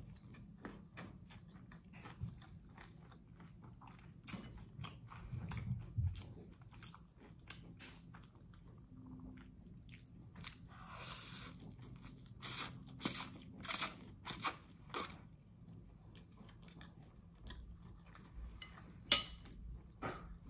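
Close-miked chewing of toasted garlic bread and spaghetti, with a steady run of small crunches. Past the middle comes a cluster of louder crunches, and one loud sharp crunch near the end.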